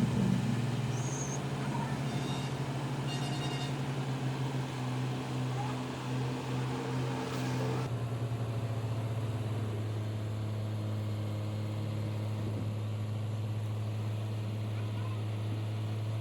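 An engine running steadily with a low, even drone; its sound changes slightly about halfway through, from a faintly pulsing note to a smoother one.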